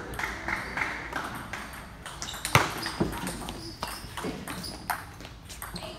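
Table tennis rally: the ball clicking off the rackets and the table in quick succession, about every half second, with the sharpest hit about two and a half seconds in.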